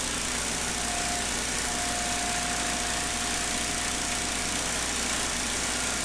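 Honda GC190 single-cylinder small engine running steadily as it drives the log splitter's hydraulic pump while the ram is cycled. A thin steady whine comes in about a second in and fades out near the five-second mark.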